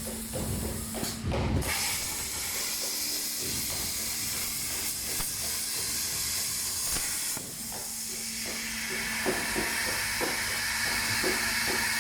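Plasma torch on a CNC cutting table cutting steel plate: a steady hiss that drops away about seven seconds in and builds back up a moment later.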